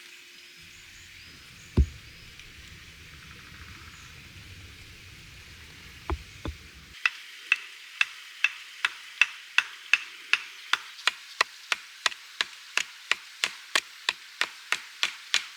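A single loud knock, then from about seven seconds in a steady run of sharp knocks, about two a second, like chopping or hammering.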